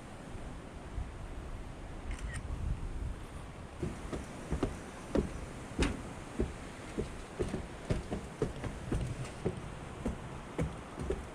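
Footsteps, about two a second, starting about four seconds in over a low, steady rumble.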